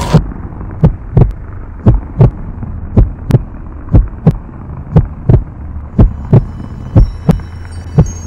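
Slow heartbeat-like double thumps, about one pair a second, over a steady low hum. A noisy wash cuts off right at the start, and faint high tones come in near the end.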